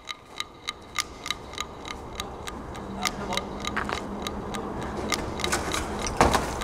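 Steady rapid ticking, about three ticks a second, with faint voices in the middle and a single thump near the end.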